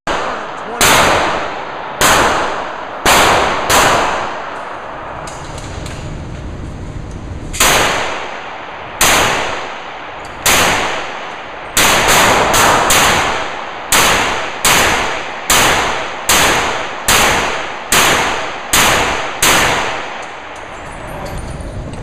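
Pistol shots at a shooting range, about twenty in all, each with a short ringing decay. The first few come a second or more apart, then from about halfway a faster string follows, roughly one shot every half to two-thirds of a second.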